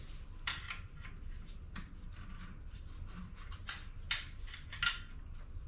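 Short metal-on-metal scrapes and clicks from a hand tool gripping and twisting a stuck cylinder-head dowel pin in a Northstar V8 engine block, a few separate strokes spread over several seconds; the pin turns but is not coming free.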